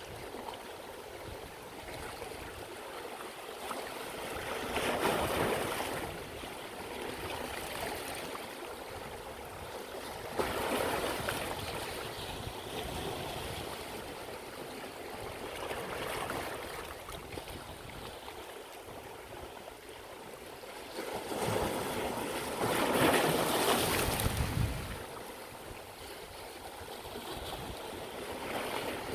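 Sea waves washing onto the shore: a steady hiss of surf that swells about every five to six seconds, with the biggest and deepest surge about three-quarters of the way through.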